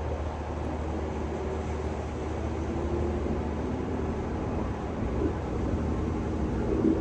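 Kanto Railway 2000-series diesel railcar running as it gathers speed out of a station: a steady low engine hum with drifting mid tones, growing slightly louder.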